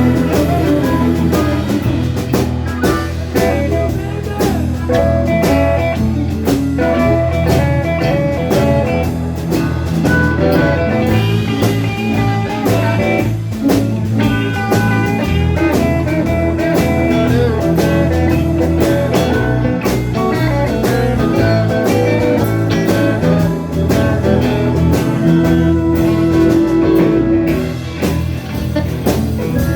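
Live blues band playing an instrumental passage: electric guitar lead over bass and drum kit, with no singing.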